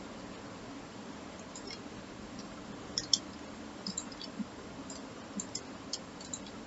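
Faint, scattered clicks of a computer mouse and keyboard being worked, a few at a time in the second half, over a low steady hum.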